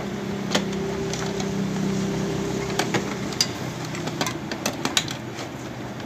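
A steady low hum runs under a series of sharp small clicks and taps, several close together near the end: hands handling the plastic wire connectors and panel inside a CRT TV chassis.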